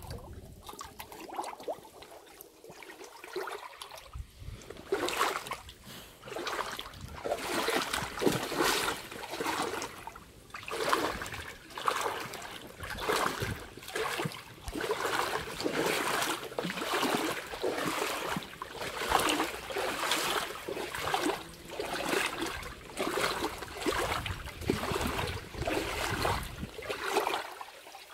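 Steps wading through a shallow river, water splashing and swishing with each stride about once a second, over the running trickle of the stream.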